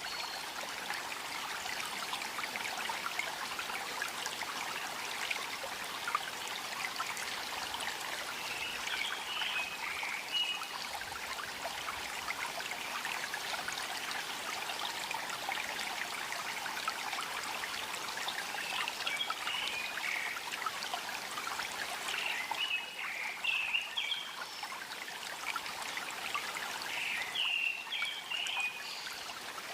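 A small stream trickling and babbling steadily, played as a sleep sound. Short bird chirps come through a few times, about a third of the way in and several more in the second half.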